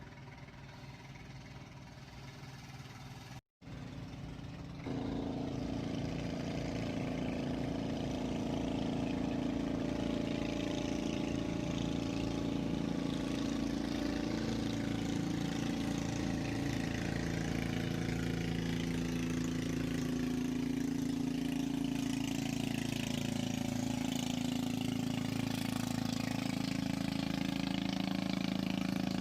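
A small engine running steadily. There is a short break about three and a half seconds in, after which it comes back louder and holds an even drone.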